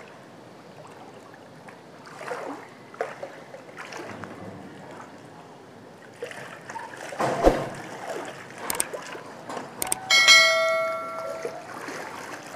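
Water sloshing and splashing as a man wades in a shallow concrete fish tank and sweeps a hand net through it. About ten seconds in come two clicks and then a bell ding lasting about a second and a half: the sound effect of a subscribe-button overlay.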